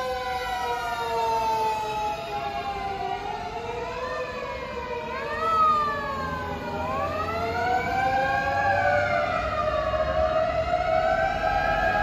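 Sirens of several Japanese fire engines on an emergency run wailing together, their overlapping tones sliding slowly up and down in pitch as the vehicles pass.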